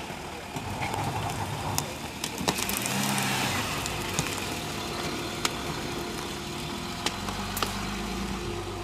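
Land Rover Discovery 3 engine running at low revs as the vehicle crawls over a leaf-covered forest slope and passes close. The engine note is steady, the tyres add a crunching noise when the vehicle is nearest, and several sharp cracks come through.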